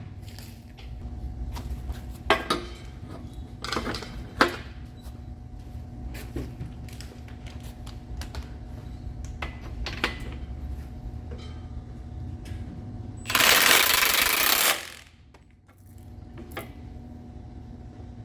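Metal tools and engine parts clinking and knocking now and then as work goes on at a big-block engine on its stand, over a steady low hum. Near the end comes a loud rushing hiss lasting about a second and a half that cuts off suddenly.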